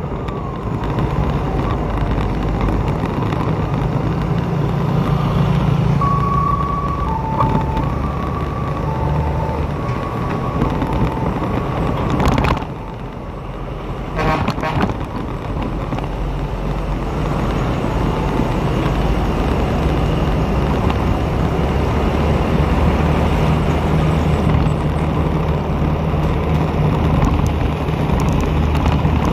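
Riding through city traffic: a steady motorbike engine hum with tyre and wind noise on a wet road. Between about six and eleven seconds in, a two-tone beeping alternates high and low, and a sharp thump comes about halfway through.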